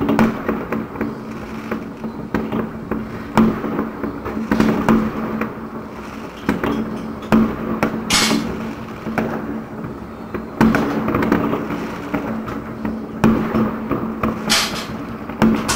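New Year's Eve fireworks: sharp bangs every second or two, with two longer hissing bursts, over a steady low tone.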